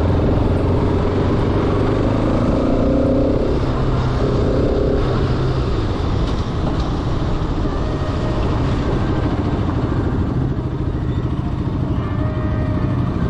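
Bajaj Pulsar RS 200's single-cylinder engine running steadily as the motorcycle is ridden, with road and wind noise.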